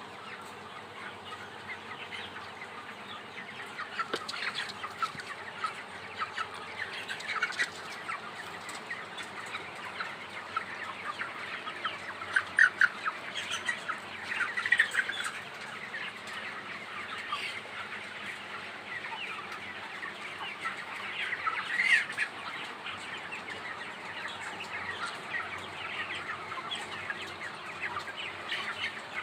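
A large flock of broiler chickens calling at once, a dense chorus of short overlapping calls. A few calls stand out louder about halfway through and again about three quarters of the way in.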